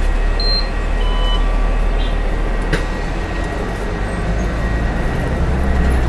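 SAPTCO city bus engine running, heard from inside the cabin as a steady low rumble. A few short high beeps sound in the first two seconds, and a single sharp click comes a little under halfway through.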